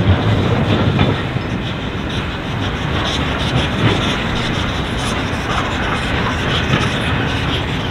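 A1 Pacific steam locomotive 60163 Tornado rolling slowly in toward the listener, a steady rumble with its wheels clattering over rail joints and pointwork. The sound is a little louder in the first second.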